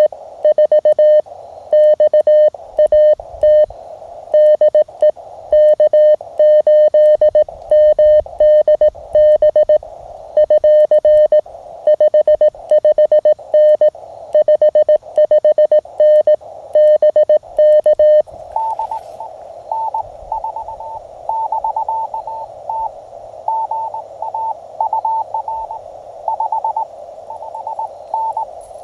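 Morse code sidetone from a Mountain Topper (MTR) QRP CW transceiver as the operator keys, a loud single tone switching on and off in dits and dahs. After about 18 seconds it gives way to a fainter, higher-pitched Morse signal received over steady band hiss.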